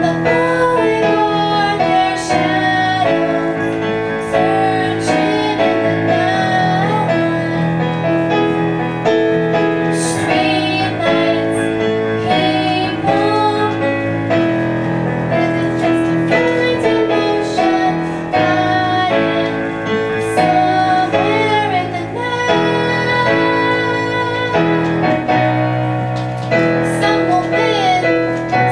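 A girl singing a song with piano accompaniment.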